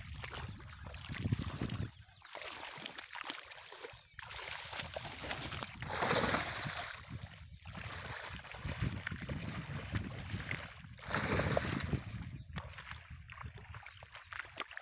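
Hooked snakehead fish splashing and thrashing in shallow, grassy water as it is pulled toward the bank, in irregular bursts, the loudest about six seconds in and again near eleven seconds.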